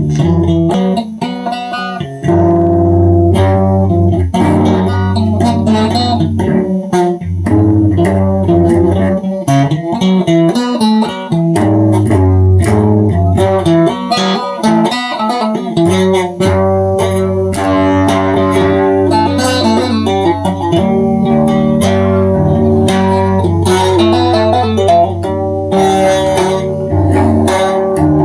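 Instrumental guitar music: plucked guitar notes over a steady bass line, with no singing.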